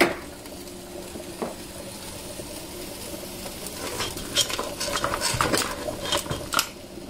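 Metal kitchen utensils clinking and scraping against a cooking pot and dishes: a sharp knock at the start, another about a second and a half in, then a run of quick clinks and knocks about four to six and a half seconds in.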